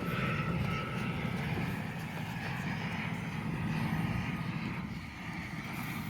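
Steady low rumble of an airplane overhead, with outdoor wind noise.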